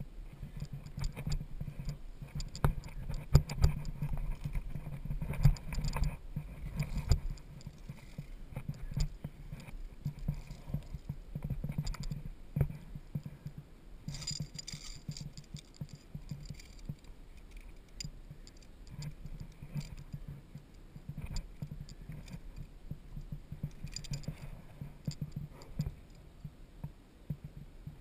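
Via ferrata lanyard carabiners clinking and scraping on the steel safety cable, with irregular metallic clicks and knocks from hands and gear as the climber moves up the rock.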